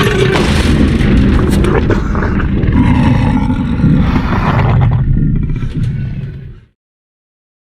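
Film sound effect of a Tyrannosaurus rex vocalizing: one long, deep, rumbling growl-roar that fades out and stops about a second before the end, leaving silence.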